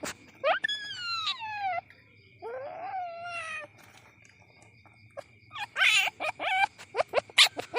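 Young palm civet calling: two drawn-out whining calls that fall in pitch, then a quick run of short, sharp squeaks near the end.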